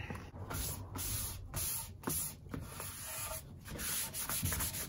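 Damp paper towel rubbed back and forth over the bare sycamore guitar body in a series of hissing strokes, wetting the wood to raise the grain before sanding.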